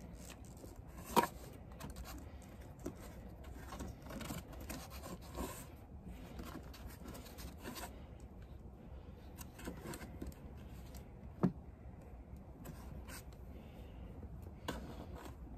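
Hand handling noise at the spark plug access hatch of an inverter generator: rubbing and scraping as the spark plug cap is fumbled with, with three sharp clicks, the loudest about a second in.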